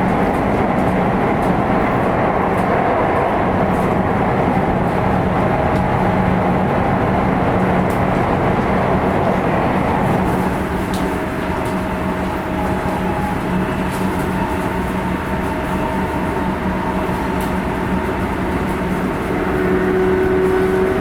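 Sotetsu 8000 series electric train with GTO-thyristor VVVF traction running on the line, heard from inside a motor car: a steady running rumble with a constant low hum. About ten seconds in it drops slightly in loudness and faint steady whining tones come in. Near the end it grows louder again with a new steady tone.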